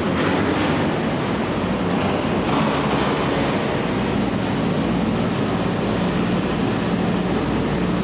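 A rally car's engine running hard under a loud, even rushing noise, cutting in suddenly and holding steady.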